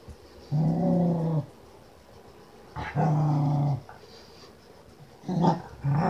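Keeshond dog play-growling while having her rump scratched: two drawn-out growls of about a second each, then two shorter ones in quick succession near the end.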